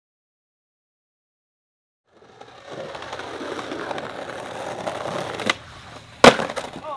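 Silence for about two seconds, then skateboard wheels rolling over rough concrete, a small click about five and a half seconds in, and a single loud impact shortly before the end as the skater bails and slams.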